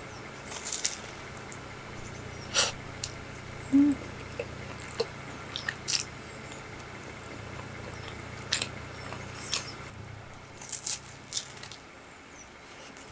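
A person biting into and chewing a bread-roll sandwich with a crab-stick and mayonnaise filling: scattered soft crunches and wet mouth clicks, with one short hummed "mm" about four seconds in. A steady low hum runs underneath and fades out near the end.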